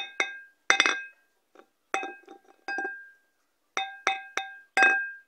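Miniature clay cupcakes being set down and knocked together on a ceramic plate: about nine sharp clinks at irregular intervals, each ringing briefly at the same pitch, with a quick run of them near the end.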